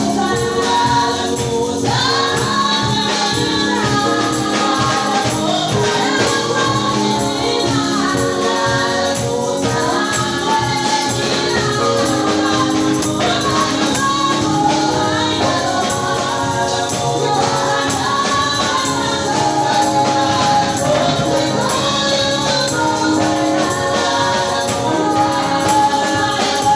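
A choir singing gospel music, accompanied by tambourine and percussion keeping a steady beat.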